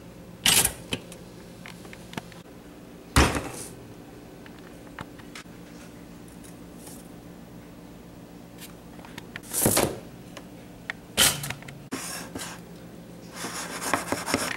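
Kitchen handling sounds: a few short knocks and rustles spread out over a faint steady hum, then a spoon stirring and scraping in a bowl near the end.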